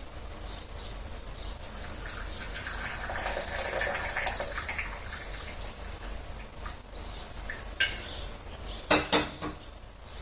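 Kitchen utensils clinking while boiled kadha, a herbal cough decoction, is poured from the pot into a cup. A soft pouring sound comes in the first half, then two sharp clinks a little before the end.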